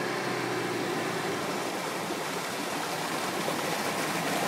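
Hyundai Galloper 4x4 driving through deep mud ruts: its engine running under load while the tyres churn and splash through mud and water, a steady rushing noise that grows a little louder as the vehicle comes closer.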